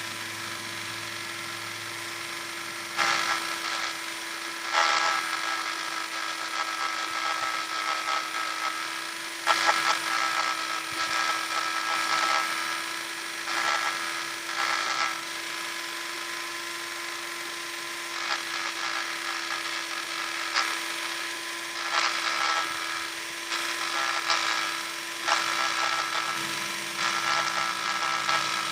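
Electric power sander running with a steady hum, and louder gritty sanding noise that comes and goes every few seconds as it works the surface.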